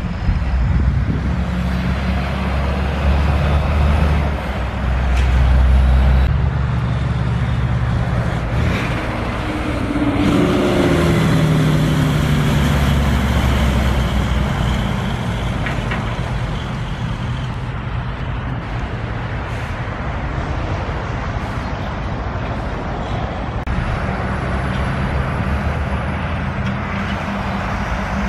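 Heavy diesel trucks towing trailers, including log trucks, driving past one after another. Their engines and tyres swell and fade as each one goes by.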